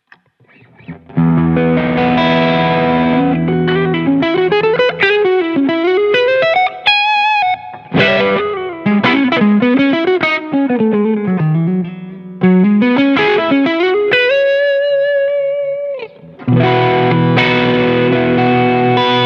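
Umeda UTE-Aldernico2 Tele-style electric guitar with two humbuckers, played through distortion. After a moment's silence a chord rings out, then a single-note lead line with string bends and vibrato ending on a long held note, and near the end another sustained chord.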